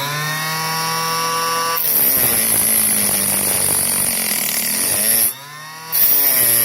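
Small electric chop saw's motor whining at speed, then cutting into a .223 brass rifle case in a long, slow, steady cut about two seconds in, the motor pitch dropping under the load. Near the end there is a short pause and then a second brief cut.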